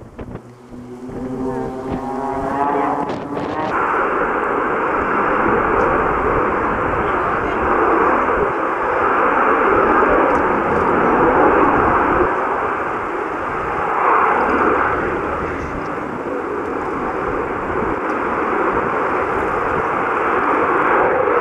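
Harrier jump jet's engine running loud and steady as the jet lifts off and climbs away. For the first few seconds a propeller aircraft's engine note, changing in pitch, is heard before the jet noise cuts in suddenly.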